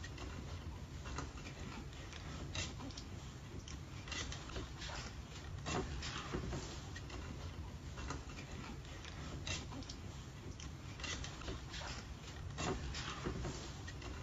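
Dogs' claws clicking and scrabbling on a glazed tile floor as French bulldog puppies paddle and slide: scattered, irregular light clicks over a steady low hum.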